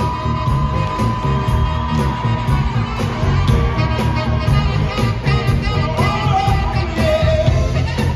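Live band music with a saxophone solo over drums, bass and keyboards: one long held note for about the first three seconds, then shorter, quicker phrases over a steady beat.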